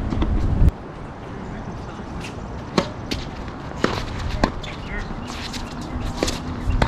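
Tennis balls struck by rackets and bouncing on a hard court during a doubles point: a string of sharp pops from a few seconds in, spaced about half a second to a second apart. Under a second in, a low rumble cuts off suddenly.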